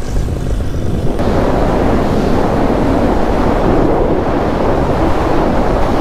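Strong wind buffeting the microphone in flight through a gusty wind storm: a steady rushing noise that gets louder about a second in.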